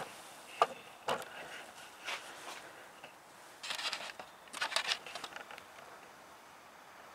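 Handling noise from a camera being panned and zoomed: a few sharp clicks early, then two short spells of crackly rustling around the middle.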